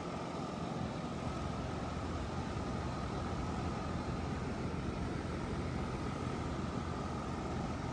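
Steady open-air beach noise: wind rumbling on the microphone, with a constant high-pitched hum running through it.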